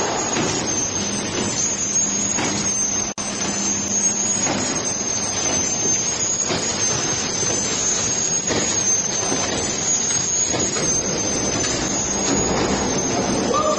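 Mini noodle machine running steadily: continuous mechanical noise with a high, slightly wavering whine and a low hum underneath, broken by a momentary gap about three seconds in.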